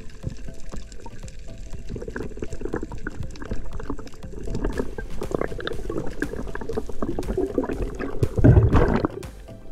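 Water rushing and bubbling around an underwater camera as a skin diver swims, with many small clicks throughout. A louder gush comes near the end.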